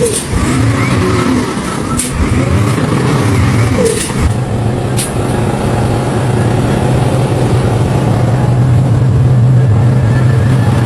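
Heavy construction machine's diesel engine running steadily, with a few sharp clanks in the first five seconds.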